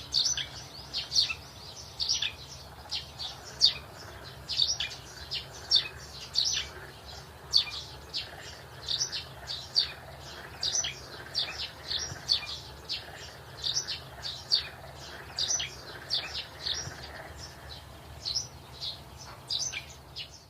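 Birds chirping: a steady run of short, high chirps, about two or three a second, over a faint low hum.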